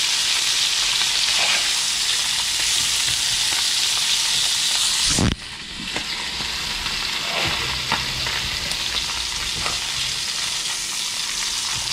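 Fish fillets frying in butter and oil in a cast-iron skillet: a steady sizzle that drops suddenly to a quieter sizzle about five seconds in.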